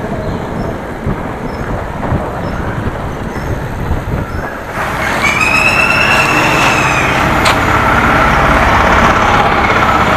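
Wind rumble and road noise on a moving action camera. About five seconds in, it switches to louder road traffic noise, with a high-pitched whine lasting about two seconds and a single sharp click.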